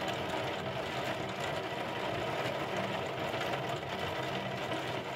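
Heavy rain falling steadily on window glass during a thunderstorm, with a low steady hum underneath. There is no thunder clap.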